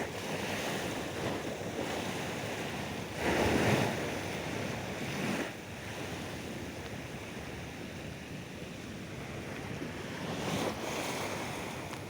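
Sea waves breaking on a beach: a steady wash of surf with a loud surge about three seconds in and a smaller one near the end.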